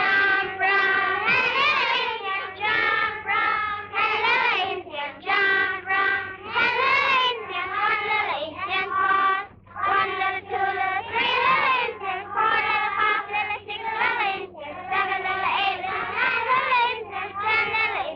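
A high-pitched voice singing a wavering melody in short phrases, with a steady low hum underneath.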